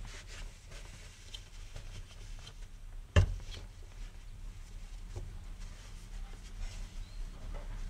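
Faint handling noises of hands working at a car's fuel-tank sender opening, a rag rustling as it is wrapped around the fuel line, with one sharp knock about three seconds in.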